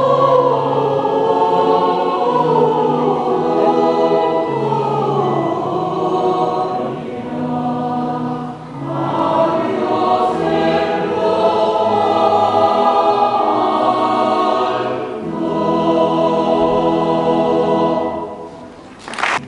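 Mixed church choir singing in parts, in phrases with a brief breath pause about two-thirds of the way through. The last phrase ends shortly before the close, and a single sharp click follows.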